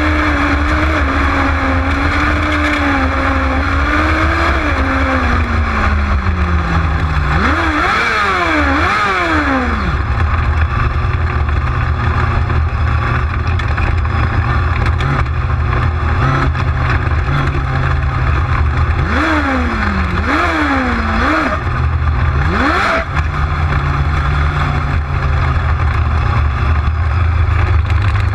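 The engine of a winged micro sprint car at race pace, heard from on board. Its pitch rises and falls through the turns, with quick repeated rev blips about 8 seconds in and again around 20 seconds.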